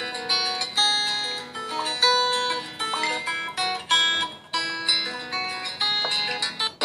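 A Facebook Messenger call ringtone previewed on a phone: a melody of short plucked notes.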